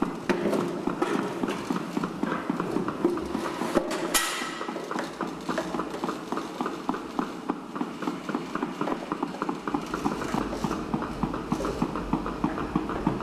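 Autonomous wheeled robot in its normal exploring mode, clicking steadily at about four to five clicks a second, with one louder knock about four seconds in.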